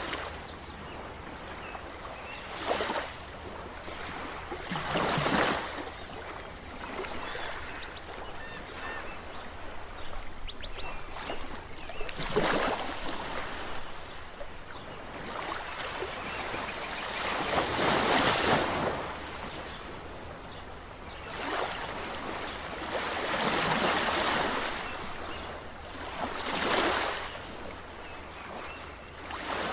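Ocean waves: a steady wash of surf with a louder wave surging in and falling away every few seconds.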